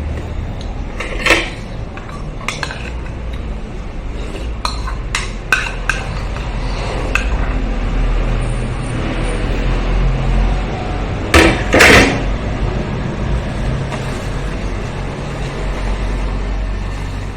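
Spoon and dishes clinking during a meal: scattered light clinks, with two loud clanks about two-thirds of the way through, over a steady low background rumble.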